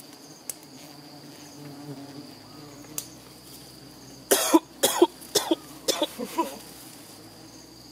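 A person coughing in a quick fit of about six coughs, starting about four seconds in, over a steady high buzz of insects.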